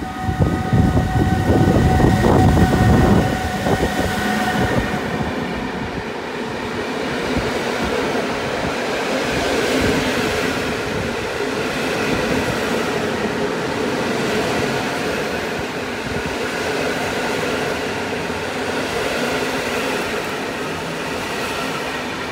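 Passenger coaches rolling past, their wheels rumbling and clattering on the rails, with several steady high tones over the top; the loud part falls away about five seconds in. A softer, steady rail rumble carries on after that, swelling and easing a little.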